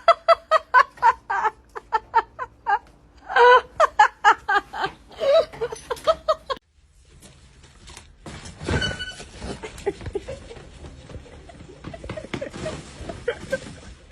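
A person laughing hard in rapid bursts for about six seconds, cutting off abruptly. Then comes a stretch of scattered noise with faint knocks.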